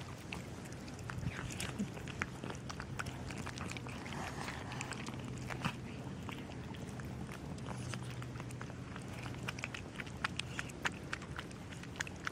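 Several cats crunching dry kibble from a plastic tub, with many quick, irregular crunches and clicks over a steady low hum.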